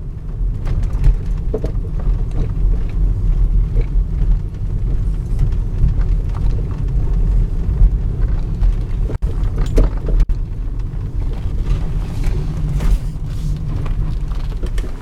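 Volvo S60 being driven, with a steady low road and drivetrain rumble and scattered sharp knocks throughout. The knocking is the fault that shows itself while driving.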